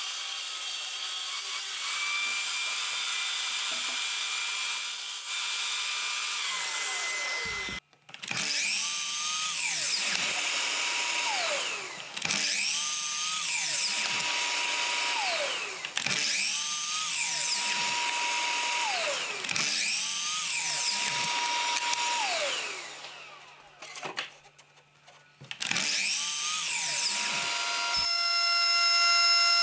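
A power tool runs steadily for about seven seconds and winds down. Then a handheld electric drill is spun up, held at speed for two or three seconds and released, about five times in a row, its whine rising, holding and falling away each time.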